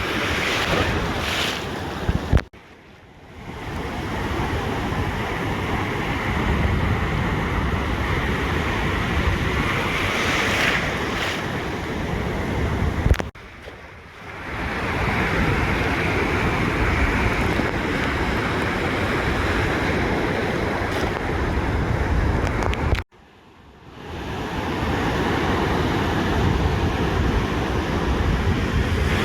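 Ocean surf washing on a beach, a steady rush of waves with wind buffeting the microphone. Three times the sound drops out abruptly and swells back in over about a second.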